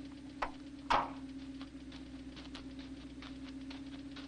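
A car door slams shut about a second in, over the steady hum of the car's idling engine. Then footsteps on stony ground, evenly paced, as someone walks away from the car.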